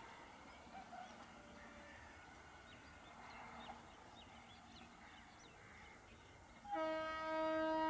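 A quiet trackside background, then about seven seconds in the approaching EMU local train sounds its horn: one loud, steady blast that is still going at the end.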